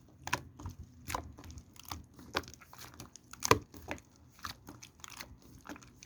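Irregular light clicks and taps, about a dozen, with a sharper one about three and a half seconds in.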